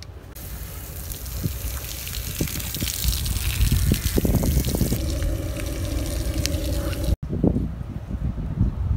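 Water running and splashing as someone washes off, an even loud hiss for about five seconds. Then a steady hum with a few tones, cut off suddenly about seven seconds in, followed by low rumbling noise.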